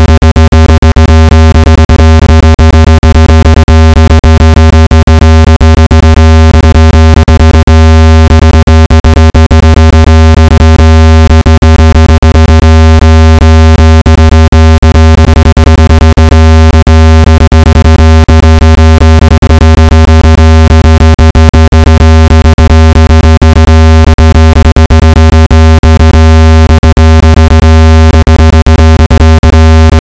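Water-ejection tone: a loud, steady, low electronic buzzing tone with many overtones, played at full volume to shake water out of a phone's charging port.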